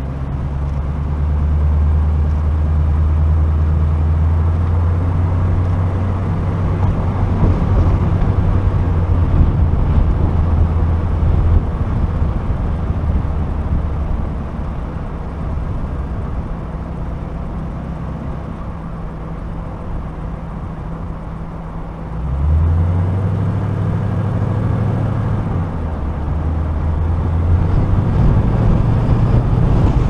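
2014 Ford Mustang GT's 5.0-litre V8 running at low speed, heard from a hood-mounted camera along with wind and road noise. The engine note steps up sharply about three-quarters of the way through and holds, then climbs again near the end.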